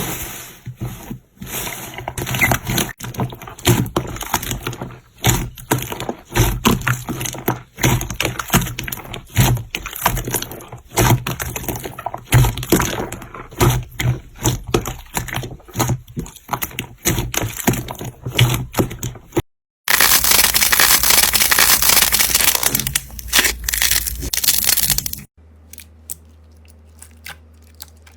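Slime being squeezed and pressed by hand, with a dense run of sharp clicks and pops. After a cut comes about five seconds of loud, unbroken crunching noise. Near the end it drops to a low steady hum with a few faint clicks.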